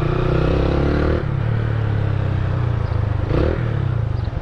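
Motorcycle with a new Roncar aluminium exhaust accelerating hard, the engine note rising, then dropping about a second in and pulling on at a lower pitch. The new exhaust gives a deep tone.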